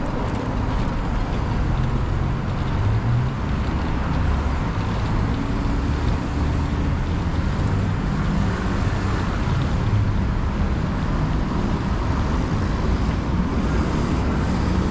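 Steady city street traffic: cars and vans driving along a busy multi-lane road, their engines and tyres making a continuous low hum.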